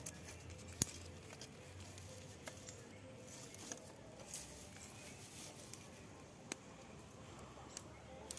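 Small campfire of dry grass tinder and sticks just catching, crackling faintly with scattered small snaps, the sharpest about a second in.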